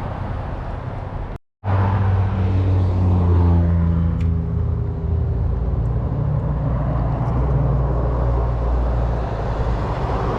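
Road traffic running steadily, with a vehicle's engine hum passing close a couple of seconds in, its pitch sagging as it goes by. The sound drops out completely for a moment about a second and a half in.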